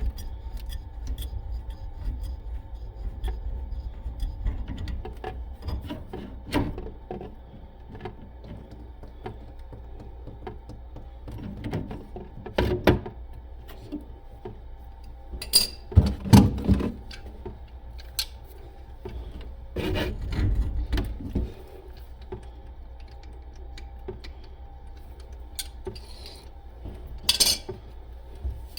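Hand tools working on a leaking water valve: scattered small metal clicks, rubbing and scraping over a steady low hum, with a few louder knocks about halfway through and near the end.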